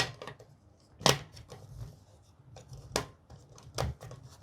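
Sharp clicks and knocks of hands working the safe's digital keypad and its AA battery compartment, three distinct clicks with light handling ticks between; no beep.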